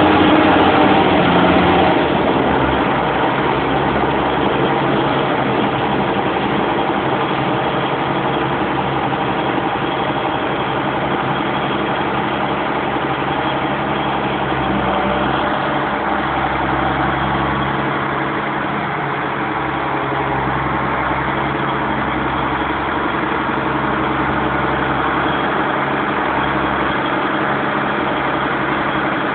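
Engine of a Chisholm Ryder Multi Density Harvester, a self-propelled bean harvester, running steadily at a constant speed, slightly louder for the first couple of seconds.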